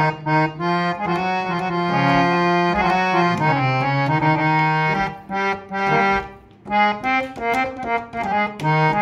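Old Pakrashi harmonium with two reed sets, bass and male, tuned to A440, playing a melody over sustained lower notes. Notes are held longer in the middle, then come shorter and more separated in the second half.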